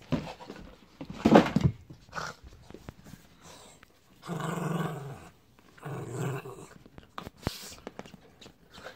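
Small mixed-breed dog growling as it mauls a stuffed toy in play. There is a loud, rough outburst about a second and a half in, then two longer growls around the middle.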